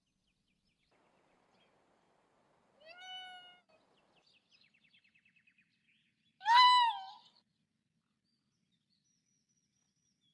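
Two short, high-pitched calls, each rising and then falling in pitch, about three and a half seconds apart, the second louder, with a faint rapid clicking between them.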